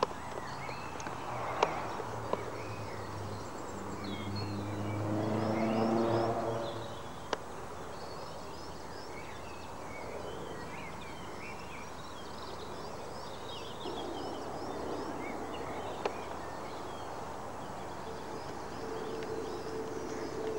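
Small birds chirping and singing in a dawn chorus, with a pitched engine sound that swells and fades about four to seven seconds in, like a passing vehicle.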